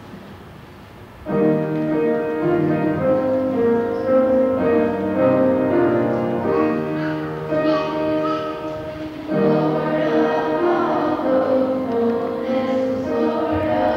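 A group of children singing together in chorus with piano accompaniment, starting about a second in, with a short break just past the middle before the singing resumes.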